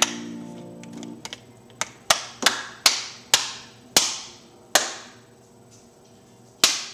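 Acoustic guitars' last chord ringing and then damped about a second in, followed by a string of sharp, separate knocks that come further and further apart.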